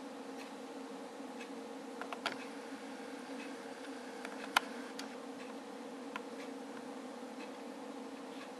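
A steady low hum with sparse faint ticks over it, and two sharper clicks about two and four and a half seconds in.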